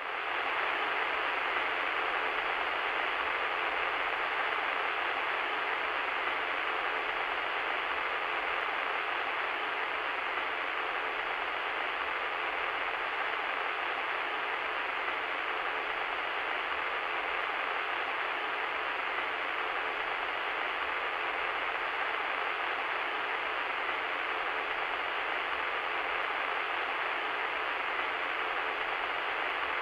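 Radio static: a steady, even hiss of interference noise with its lows and highs cut off, like noise heard through a small radio speaker, running without change.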